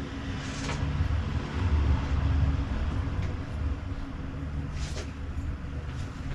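A steady low mechanical hum, swelling a little about two seconds in, with a few faint light clicks from hands working at the bicycle's handlebar and cable.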